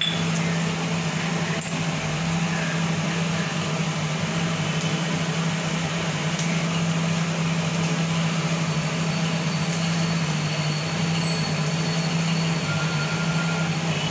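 Steady mechanical hum with an even hiss underneath, from a running machine such as a fan or motor.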